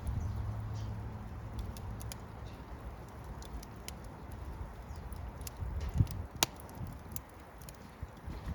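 Wood fire crackling: irregular sharp pops and snaps over a low rumble of burning, with one louder pop about six and a half seconds in.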